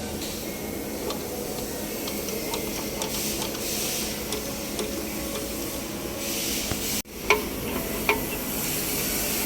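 Kubota B1500 compact tractor running with a steady mechanical hum and hiss. About seven seconds in it breaks off for an instant, then a few sharp clicks follow.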